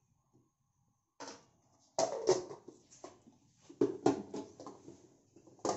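A series of sharp knocks and clatters from a steel mixer-grinder jar and steel utensils being handled, as the jar is set onto the mixer base and its lid put on, with short silences between.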